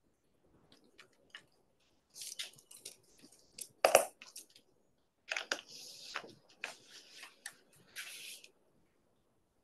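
Typing at a laptop: scattered key clicks among short bursts of rustling hiss, with one sharp knock about four seconds in that is the loudest sound.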